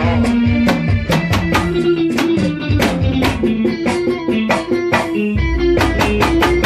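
Band playing an instrumental passage: electric guitar picking a quick repeated melody over bass and a drum kit keeping a steady beat.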